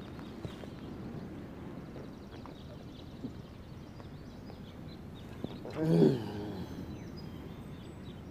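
Faint outdoor background noise, with one short, low, voice-like call about six seconds in.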